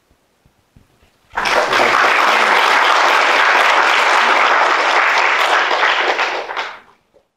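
Audience applauding in a hall: the clapping starts suddenly about a second in, holds steady, and dies away near the end.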